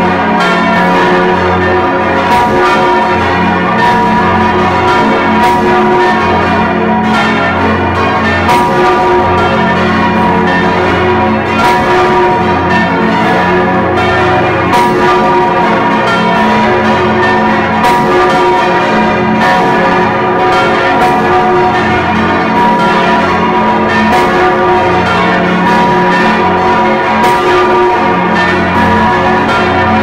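Large bronze church bell (the Stephanus bell of St. Stephan) swinging and ringing close up in the belfry, struck by its clapper again and again, with a dense, continuous hum of overlapping bell tones between strikes. The recording is muffled by damping on the microphone.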